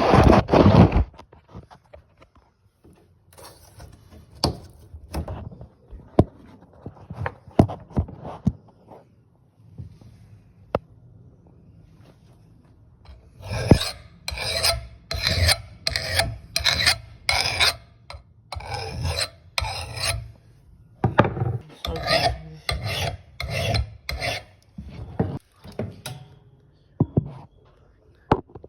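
Flat file rasping along the edge of an old steel axe head in a run of even strokes, about one and a half to two a second, taking up the second half with a couple of short breaks. Before that, scattered light knocks and clicks of the file and axe head being handled.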